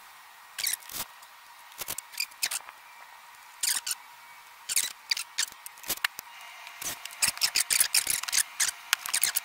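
Nylon parachute cord being pulled and knotted by hand: short, scattered rustles and scrapes. They come in a quicker run near the end as the plywood seat is tipped over.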